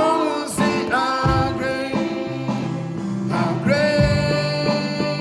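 Live worship music: a singer holding long notes over a band, the voice sliding up into a sustained note about three and a half seconds in.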